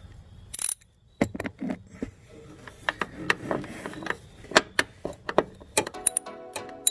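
Irregular metallic clicks and knocks of hand tools being handled, such as a socket and ratchet, with a short burst of noise about half a second in. Background music comes in near the end.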